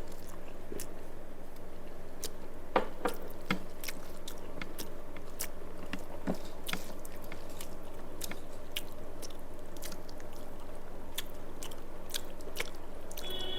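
Close-up mouth sounds of a person eating rice with fish curry: wet chewing with irregular smacking clicks, over a steady low hum. Near the end, a pitched tone with several overtones comes in, like music or a loudspeaker.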